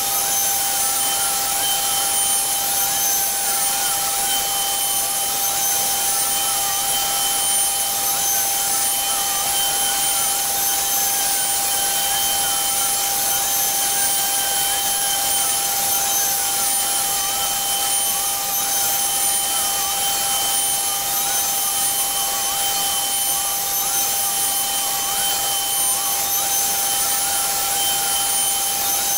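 Router spindle on a CNC Shark machine running at a steady high whine while its bit carves into a wooden door panel, with a fainter tone beneath that wavers up and down as the head moves through the cut.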